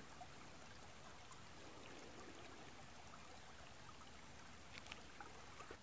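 Near silence: a faint, even rush of creek water, with a couple of faint clicks near the end.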